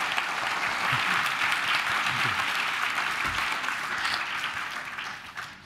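Audience applauding: steady, dense clapping from a large seated crowd that fades out near the end.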